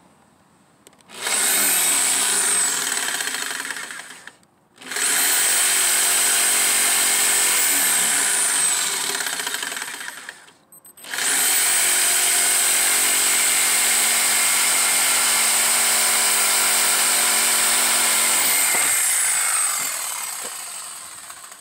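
Corded Ridgid jigsaw cutting a wooden board in three runs, its motor whining up to speed at the start of each run and winding down with a falling whine at the end, with two short stops between. The last and longest run winds down near the end.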